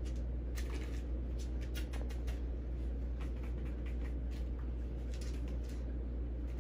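Light, irregular scratchy rustles and clicks from a corgi puppy with a crumpled paper ball, thickest in the first couple of seconds, over a steady low hum.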